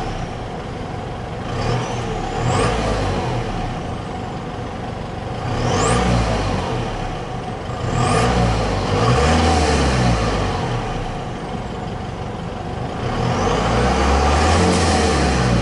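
Mazda BT-50's 3.0-litre four-cylinder turbodiesel (Isuzu 4JJ3-TCX) heard at the tailpipe, idling and revved four times, each rev swelling and falling back to idle. A high rising whistle comes in at the start of several of the revs.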